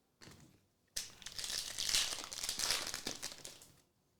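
Foil wrapper of a trading-card pack crinkling as it is handled, starting sharply about a second in and fading out near the end.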